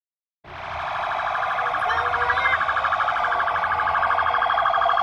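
Emergency siren sounding in a fast, rapidly pulsing warble, cutting in abruptly about half a second in and running loud and steady.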